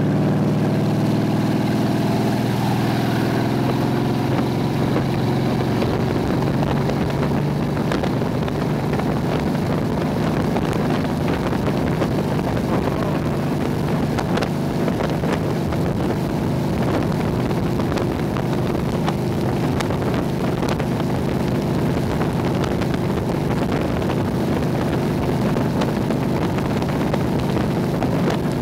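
Motorboat engine running steadily under load while towing a water skier, its pitch rising over the first few seconds as the boat speeds up. Wind buffets the microphone over the rush of the wake.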